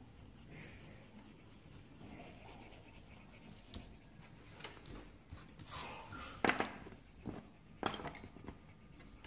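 Faint scratching of a coloured pencil on paper, then paper cards being handled and slid across a cloth-covered table, with a few short sharp paper rustles in the second half, the loudest about six and a half and eight seconds in.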